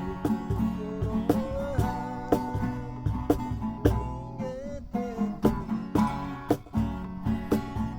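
Acoustic guitar strummed in a steady rhythm, about two strokes a second, with a wavering melody line over it.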